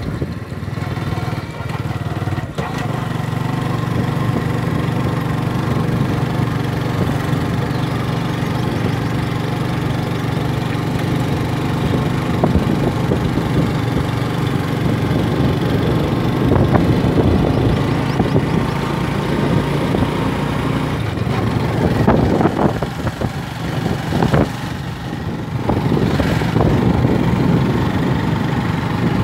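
Motorcycle engine running steadily while being ridden along a rough road. It grows louder and rougher in the second half.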